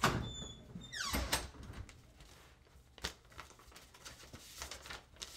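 An interior door clicks shut, followed about a second later by a falling swish, then faint knocks and rustling of handling.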